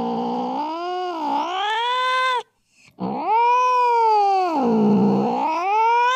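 Angry domestic cat yowling in two long, drawn-out calls whose pitch sags and rises, with a short break about two and a half seconds in.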